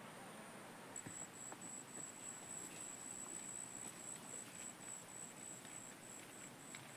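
An insect chirping outdoors in a high, thin, evenly pulsing trill, starting about a second in. A faint outdoor background runs underneath.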